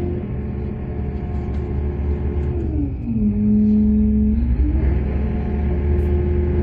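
Heavy diesel engine of mining machinery running with a deep, steady rumble; about three seconds in its note drops and gets louder for a second or so as it takes load, then rises back up.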